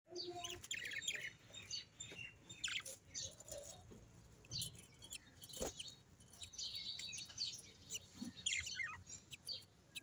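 Budgies chirping and chattering in a run of short, high chirps, with one brief knock about five and a half seconds in.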